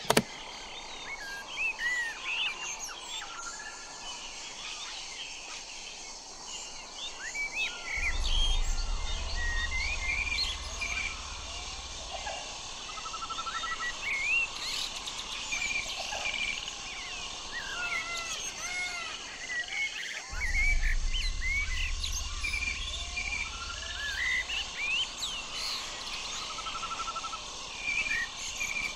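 Common blackbird singing among other birds in a busy outdoor chorus of overlapping whistles and chirps. A low rumble comes in twice, for a few seconds each, about a third of the way in and again after two-thirds.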